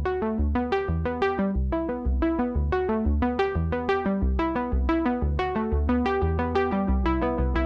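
Background music: a quick keyboard melody of short, bright plucked notes, several a second, over a steady bass line.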